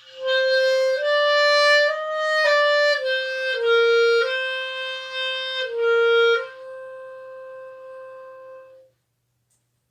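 Solo clarinet playing a short tune of held notes that step up and down, ending on one long note that fades out about 9 seconds in.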